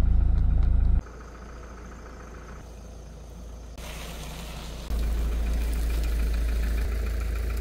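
Motorhome engine running: a steady low drone inside the cab that cuts off about a second in, then a quieter stretch, and from about five seconds in a louder low engine rumble as the motorhome drives past close by.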